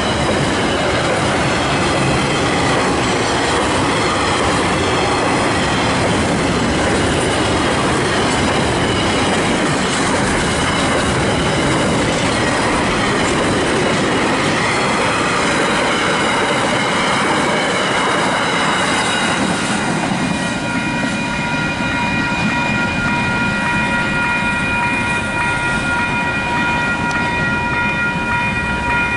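Long container freight train's wagons rolling past at speed: a continuous loud rumble of wheels on the rails. About twenty seconds in, steady high-pitched ringing tones join the rumble.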